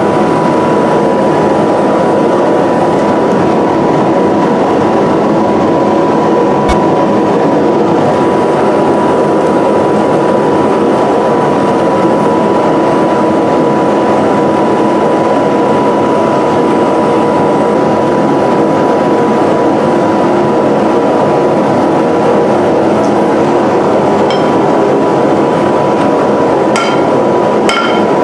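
Propane forge burner running with a loud, steady rush and a thin steady whine. Near the end, hammer blows begin ringing on the hot steel blank.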